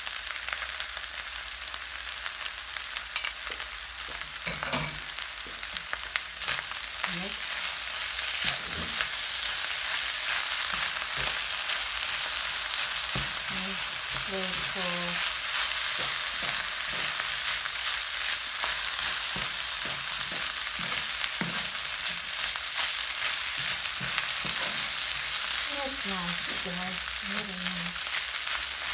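Fried rice with curry sauce sizzling in a nonstick frying pan as a wooden spatula stirs and tosses it. A few sharp clicks of the spatula against the pan come in the first few seconds. The sizzle grows louder about six seconds in and then stays steady.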